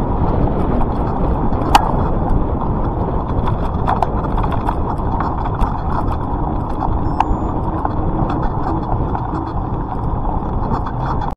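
Wind rumble and rattling on the microphone of an action camera moving fast over a dirt forest track, with scattered sharp clicks of the mount jolting.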